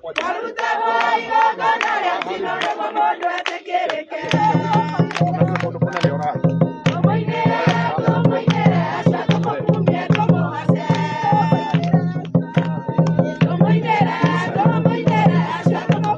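Congregation singing a praise song led by a singer, over a steady percussive beat. A low sustained bass comes in about four seconds in and carries on under the singing.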